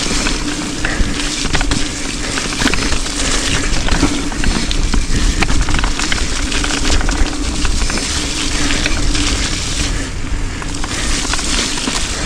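Mountain bike descending a rough, rocky trail: steady tyre noise and wind rush, with constant clicks and rattles as the bike bounces over rocks.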